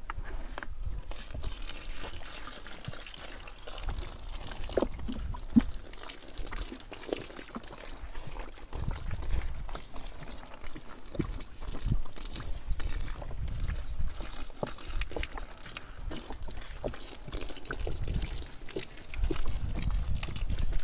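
Diesel being poured from a container into a lightning-arrester earth pit, a continuous pouring and trickling of liquid.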